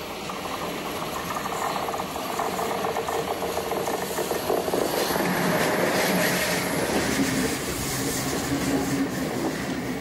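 Class 103 electric locomotive and its passenger coaches passing close by after coming out of a tunnel. The rolling noise and wheel clatter build up as the train approaches and are loudest a little past the middle, as the coaches go by.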